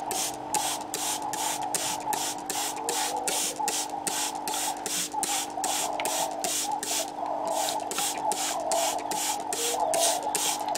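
Trigger spray bottle squirting water mist onto pots of seed-starting soil in quick even pulses, about four a second, with a short pause a little past halfway.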